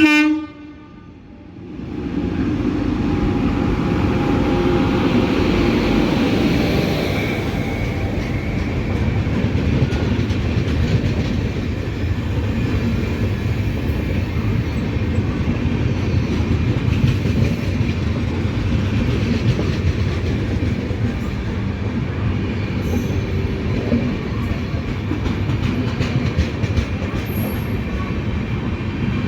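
Indian Railways train rolling along the track: a steady rumble of wheels with clatter over the rail joints. It starts after a brief pitched tone that is cut off, followed by about a second of much lower level.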